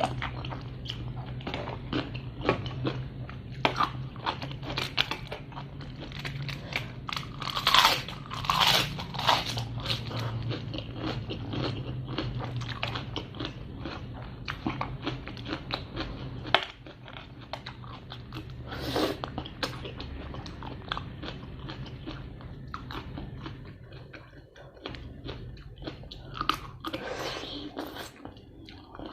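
Close-miked eating: repeated biting and crunchy chewing of a spicy pounded seafood salad with blue crab and fresh shrimp.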